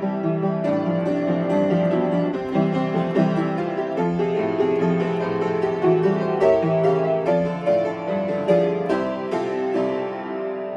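Upright piano played solo: a melody over chords in the bass, notes struck in a quick, busy stream.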